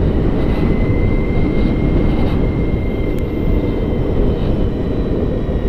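Wind and road rush on the microphone while riding a BMW CE 04 electric scooter, with no engine sound, only a faint steady high whine.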